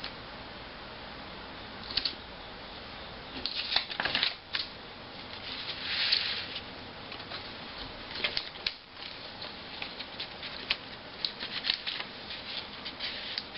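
Paper being handled on a tabletop: scattered short rustles and crinkles of sheets and strips of paper being moved, smoothed and taped, coming more often near the end.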